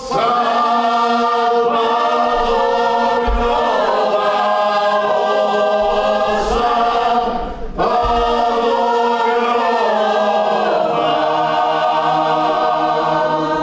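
Small folk vocal group singing a traditional Croatian song a cappella in several-part harmony, holding long chords, with a short breath break about halfway through.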